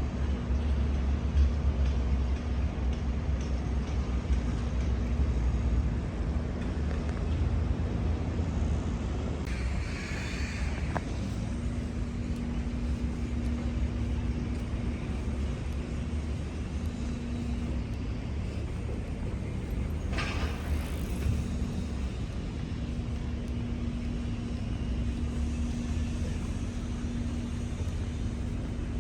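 Ferry engine running with a steady low rumble; a steady hum joins about eleven seconds in. Two brief hisses come about ten and twenty seconds in.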